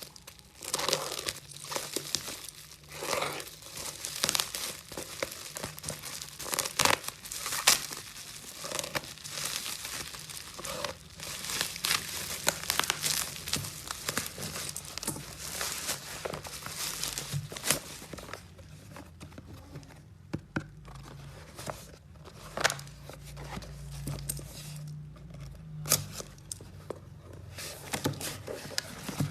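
Plastic packaging crinkling and tearing as it is handled, in dense rustling bursts for most of the first two-thirds, then thinning to scattered clicks and knocks.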